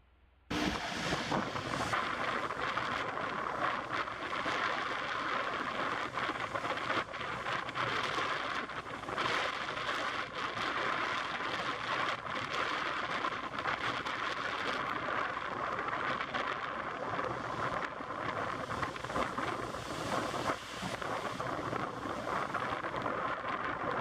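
Wind buffeting the microphone by the water: a steady, fluttering rush that cuts in abruptly about half a second in.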